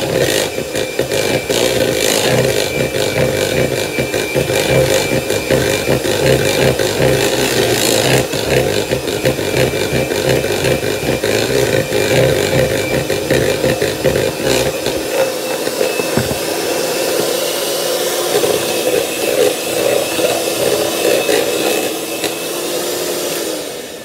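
Betty Crocker electric hand mixer running steadily, its beaters churning through cake batter. It is kind of loud. The motor winds down and stops just before the end.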